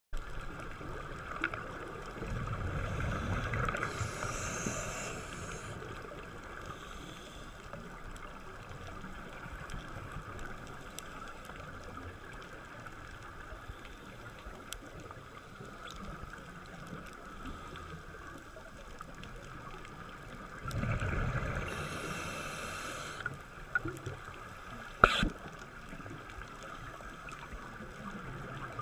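Underwater sound on a scuba dive, heard through a camera housing: a steady hiss with two louder surges of a diver's exhaled regulator bubbles, a few seconds in and again about two-thirds of the way through, and a sharp click near the end.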